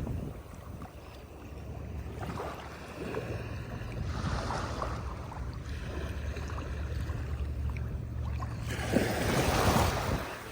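Sea waves washing up on a beach, surging in swells, the biggest near the end, over a steady low rumble.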